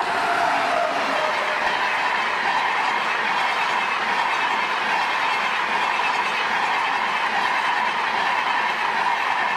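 Express passenger train, hauled by an electric locomotive, passing close by at speed: a steady rush of wheel and rail noise from the coaches, with a faint tone falling in pitch in the first second.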